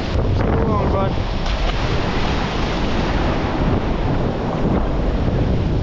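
Ocean surf washing steadily over rocks, with wind buffeting the microphone and rumbling in the low end.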